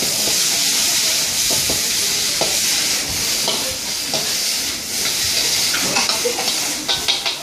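Green vegetables sizzling in a hot wok over a gas burner while a metal ladle stirs them, scraping and clinking against the wok. A few quick clanks come near the end.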